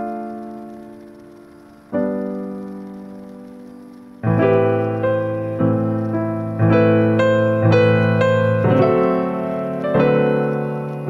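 Backing music led by piano: chords are struck and left to ring out, then about four seconds in a bass line and quicker piano notes join.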